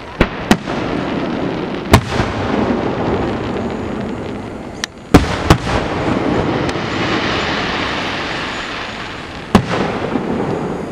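Aerial fireworks shells bursting: about six sharp bangs, a pair at the start, one about two seconds in, another pair about five seconds in and one near the end, with a rolling rumble of echoes between them.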